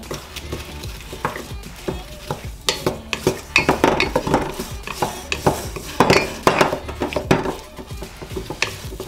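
A wooden spatula stirring chopped strawberries with flour and orange juice in a stainless steel mixing bowl: irregular wet scrapes and clicks against the bowl, busiest in the middle stretch.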